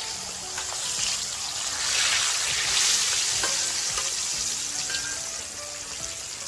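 Battered mackerel fillets deep-frying in hot oil in a shallow pan: a steady sizzle that swells louder around two to three seconds in and then eases.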